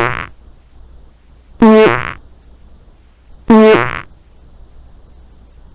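Loud human fart with a clear buzzing pitch, about half a second long, heard three times nearly two seconds apart, each one alike.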